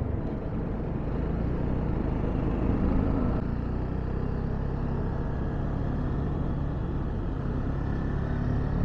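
Motorcycle engine running steadily at riding speed, with wind and road noise on the rider's camera.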